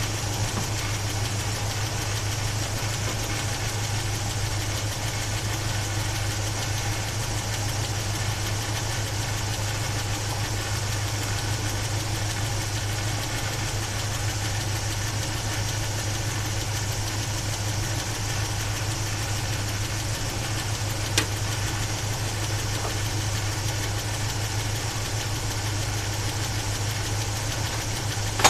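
Chevy 350 small-block V8 idling steadily, an engine being diagnosed for a top-end noise. One sharp click about three-quarters of the way through.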